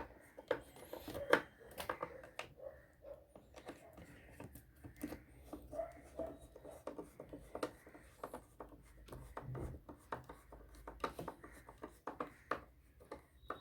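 Screws in a mini tower speaker's panel being tightened by hand with a screwdriver: faint, irregular small clicks, ticks and scrapes.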